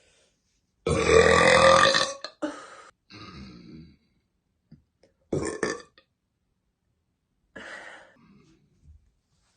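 A woman burping: one long, loud burp about a second in, then a shorter burp around the middle and a fainter one near the end.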